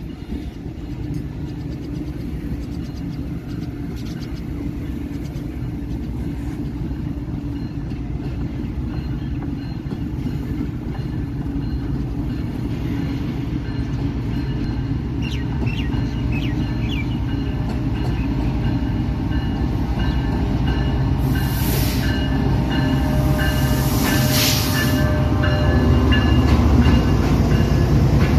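GEU40 diesel-electric locomotive and its passenger coaches approaching and coming alongside, a low rumble that grows steadily louder as the train nears. Thin high squealing tones join in about halfway through, and two short loud blasts come about three quarters of the way in.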